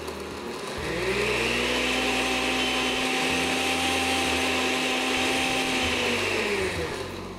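Countertop blender motor spinning up about a second in and running steadily as it blends lemonade and ice into a slush, then slowing and falling in pitch as it winds down near the end.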